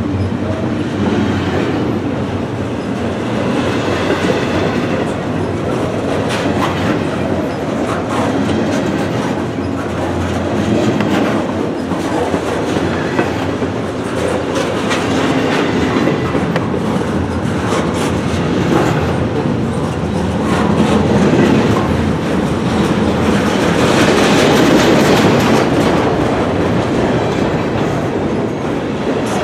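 A long freight train of intermodal container cars rolling past close by: a steady rumble with irregular clacking of steel wheels over the rail joints.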